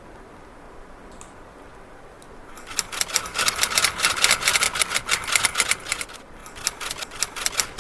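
Typewriter sound effect played back from an MP3: a rapid run of typewriter keystrokes, about eight to ten clacks a second, starting a few seconds in. It breaks off briefly and then resumes near the end.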